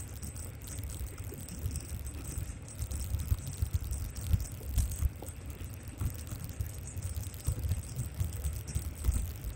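Xiaomi M365 electric scooter riding over a rough, wet road, with irregular rattling and clicking. Wind buffets the microphone as an uneven low rumble, and a faint steady high whine sits behind it.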